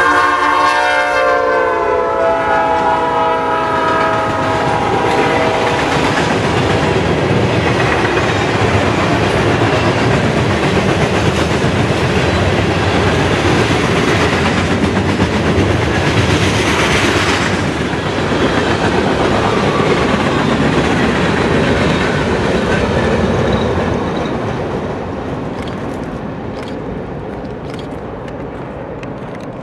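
Norfolk Southern freight train passing: the lead diesel locomotive's horn chord is sounding as it goes by and drops in pitch, ending about five seconds in. Then the locomotives and a long string of freight cars roll past, wheels clacking over the rail joints, fading near the end as the train moves away.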